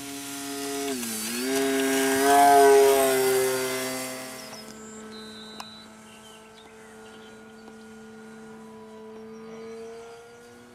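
Multiplex Mentor model plane's electric motor and propeller whining at full throttle on takeoff. It is loudest about two to three seconds in as the plane passes close, then drops to a fainter steady whine as it climbs away.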